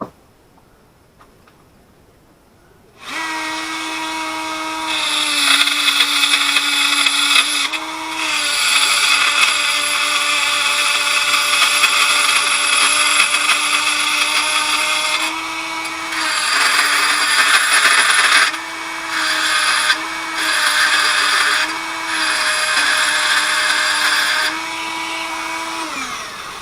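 Small handheld electric power tool starting about three seconds in and running for over twenty seconds, grinding into the steel of a vise's holding pin. Its motor pitch dips each time the bit bites, with grinding noise swelling and easing in bouts as it is pressed in and eased off. It stops near the end.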